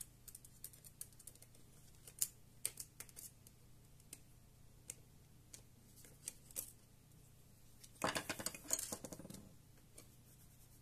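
Light, scattered clicks and scrapes of a small screwdriver working the screws that hold the CPU heatsink on a laptop mainboard, with a longer burst of clattering about eight seconds in.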